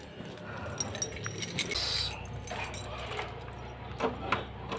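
A bunch of keys on a metal carabiner jangling and clinking as they are handled, then a key being fitted into a doorknob lock near the end.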